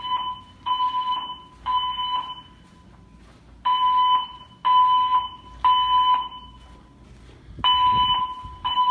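Building fire alarm speakers sounding the temporal-three evacuation signal: a high, steady beep in sets of three, about a second apart, with a pause of about two seconds between sets.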